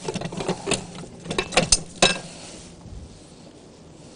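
A few sharp clinks and knocks of glassware and kitchen utensils being handled, bunched in the first two seconds and then dying away.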